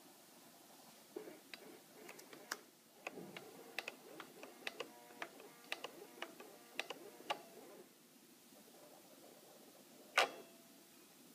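Small stepper motor, microstepped through an EasyDriver, ticking in quick irregular clicks with a faint whine as it swings its arm to follow the transmitter stick. Then a pause, and one sharp click near the end.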